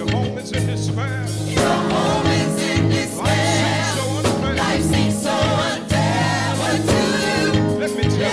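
Gospel song: voices singing with wavering pitch over instrumental accompaniment with steady low bass notes.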